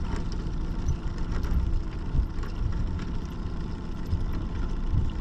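Boat motor running steadily at low trolling speed: an even, low drone.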